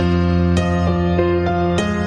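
Background music: calm new-age style instrumental with sustained notes that change about every half second.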